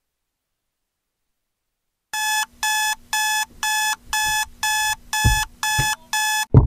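Akai digital alarm clock beeping, about two short high beeps a second, nine in all, starting about two seconds in. The beeping stops with a loud thump near the end.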